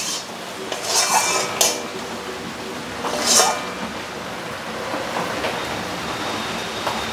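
Metal spatula scraping and clattering against a metal kadai as a thick ash gourd curry is stirred and tossed. There are scrapes near the start, around a second in and about three seconds in, and it is quieter after that.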